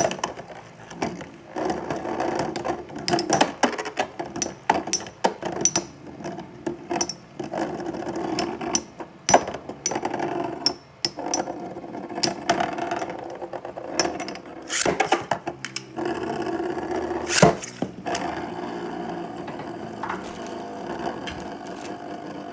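Metal Fight Beyblade spinning tops whirring, with frequent sharp clacks as they collide. There is one loud hit about 17 seconds in, and only a steady whir after it.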